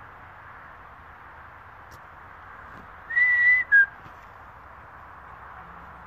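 A person whistling to call a dog: one long level note followed by a short lower note, about three seconds in.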